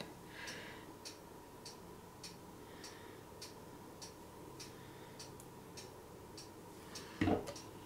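Faint, steady ticking at about two ticks a second, as of a clock, with a brief louder knock near the end.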